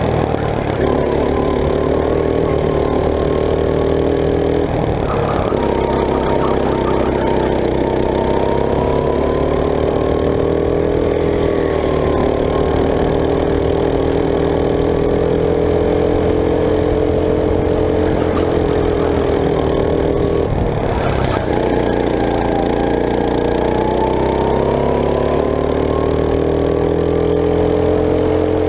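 Go-kart engine heard from onboard the kart, running at racing speed with its pitch rising and falling through the lap. The note drops off sharply twice, about five and about twenty seconds in, then climbs back steadily as the kart accelerates out of the turn.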